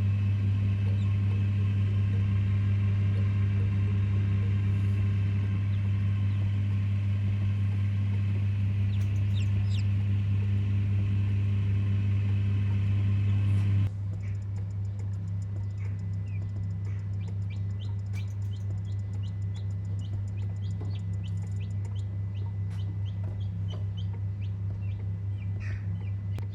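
Baby chicks peeping in short high chirps over a steady low electrical hum. About halfway through, the hum drops in level and the peeps come more often.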